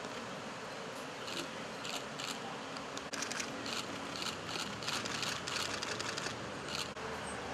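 Many camera shutters clicking, a few at first about a second in, then in rapid overlapping runs through the middle, stopping just before the end; a steady background hiss runs underneath.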